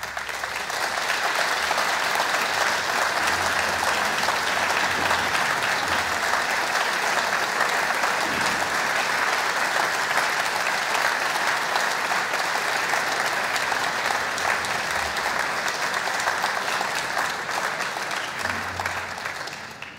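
Large audience applauding, a steady dense clatter of many hands clapping that tapers off near the end.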